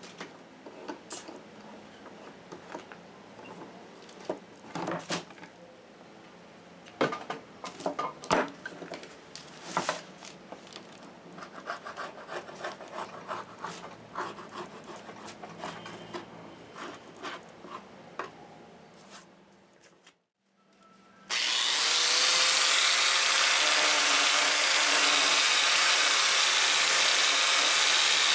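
Hand work on wood: scattered scraping, rubbing and light knocks for about twenty seconds. Then, after a brief silence, a power tool starts up and runs loud and steady to the end.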